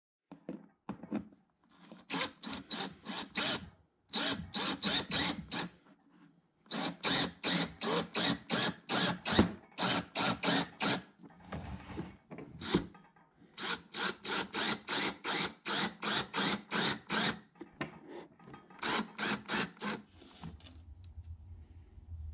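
Fast back-and-forth hand rubbing strokes, about five a second, in runs of a few seconds with brief pauses. This is abrasive scrubbing or sanding by hand. Near the end the strokes stop and a low steady hum remains.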